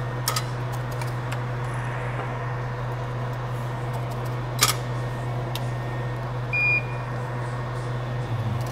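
Steady electrical hum and fan noise of a micro-soldering bench, with two sharp clicks, one right at the start and one about four and a half seconds in. A single short, high electronic beep from bench equipment sounds about six and a half seconds in.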